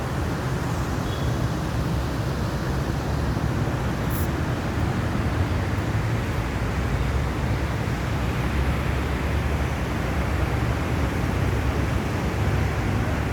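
The Río Cali's water rushing past the bank, a steady unbroken noise.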